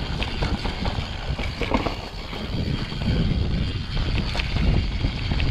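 Mountain bike riding down a dirt trail: wind buffeting the microphone and a steady rumble of tyres over the ground, with scattered clicks and knocks from the bike and trail.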